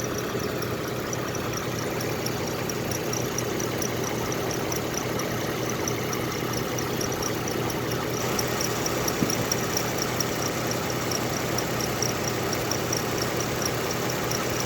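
Toyota 2GR-FE 3.5-litre V6 idling steadily, with a fast, even ticking of several ticks a second over the engine hum: the extraneous noise under investigation.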